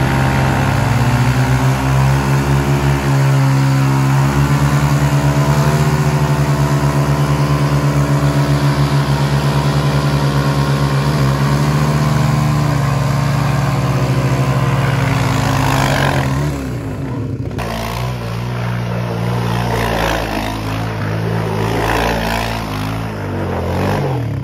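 Sport ATV engine held at high revs while the quad spins donuts, burning its rear tyres. The engine note holds steady for most of the time, then breaks up and drops in level about three-quarters of the way through.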